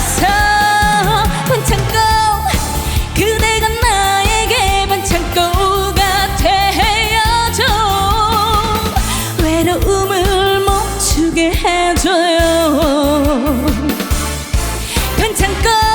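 Korean trot song performed live: a woman singing sustained, wavering notes with heavy vibrato over a pop-trot backing band with a steady beat.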